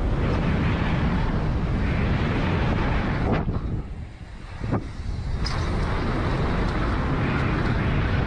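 Wind buffeting the camera microphone: a steady, heavy rumbling hiss that cuts out briefly twice near the middle.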